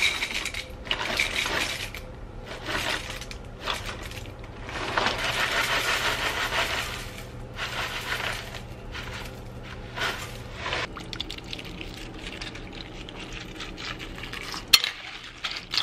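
Dry cereal poured from its box into a large bowl: Cinnamon Toast Crunch squares, then Kashi GoLean granola clusters, rattling and pattering in over several pours. Near the end liquid egg whites are poured from a carton onto the cereal, more quietly.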